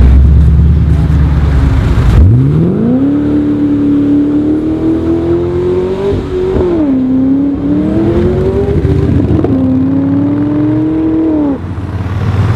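Chevrolet Camaro SS V8 accelerating hard. After a low rumble, the revs shoot up about two seconds in and keep climbing, dropping briefly at a gear change around six seconds before climbing again. The sound cuts off shortly before the end.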